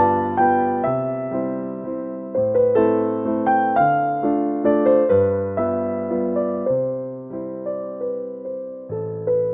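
Piano background music: a slow melody of struck notes, each fading away, over low bass notes that change every second or two.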